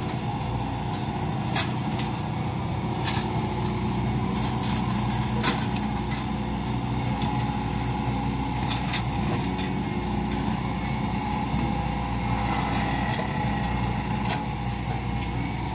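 Hitachi Zaxis 110 excavator running under load, driving a hydraulic mulcher head that grinds chipped oil palm trunk debris into the ground. A steady machine drone with several sharp knocks of debris striking now and then.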